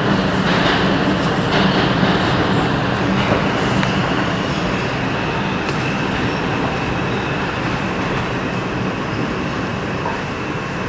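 An R142 subway car rolling along a station platform, heard from inside the car: steady rumble of wheels on rail that eases off as the train slows, with a faint high whine from about three seconds in.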